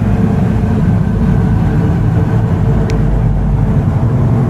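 A loud, steady low rumble with a deep held hum in it, cutting off abruptly shortly after.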